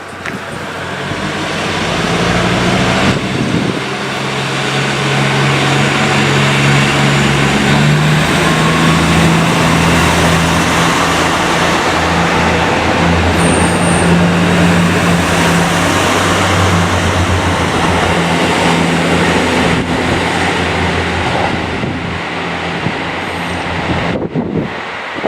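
Diesel engine of a KiYa 95 track and overhead-wire measuring railcar running loudly: a steady low engine drone over a broad rush of noise.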